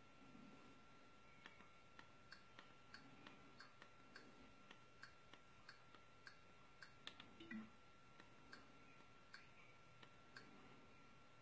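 Faint menu-navigation clicks at a fairly even pace, just under two a second, while a TV media-app menu is scrolled through, with a soft low two-note tone about seven and a half seconds in. A faint steady high tone hums behind them.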